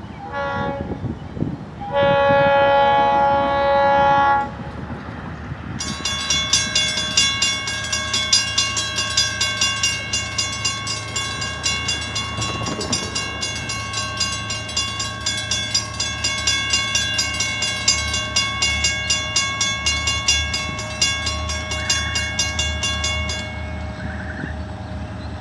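Florida East Coast EMD SD40-2 diesel locomotive approaching: its air horn gives a short blast, then a loud long one, then its bell rings steadily for about seventeen seconds. Under it the low rumble of the engine and train grows louder near the end.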